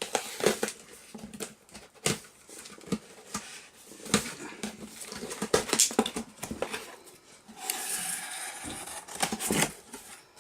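Large cardboard shipping box being cut open and handled with a blade: irregular scrapes, taps and knocks of cardboard, with a longer continuous scrape near the end.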